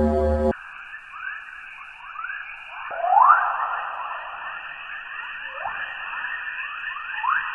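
Spacecraft radio and plasma-wave data turned into sound: a band of eerie hiss with many quick rising chirps, the loudest about three seconds in. It cuts in sharply after half a second of low droning and cuts off at the end.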